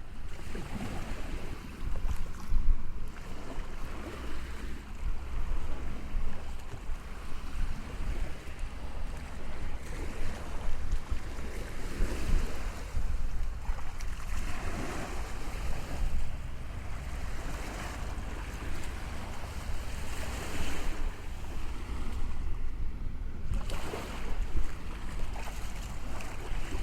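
Sea waves washing in one after another, each a swell of hiss every few seconds, over a steady low wind rumble.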